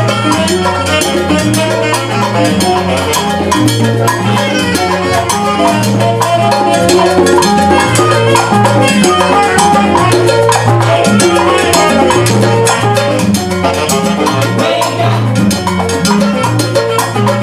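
Salsa band playing live: congas, timbales and drum kit with upright bass and piano, a saxophone playing the melody over them.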